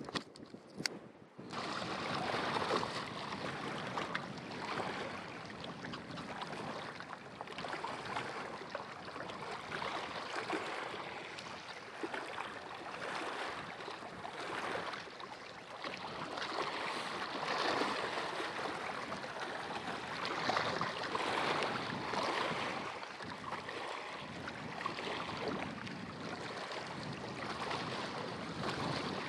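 Wind over the lake with small wind-driven waves lapping against a rocky bank, the noise swelling every couple of seconds.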